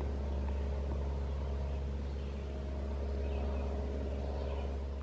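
Steady, distant engine drone, a low hum with a held pitch that does not rise or fall.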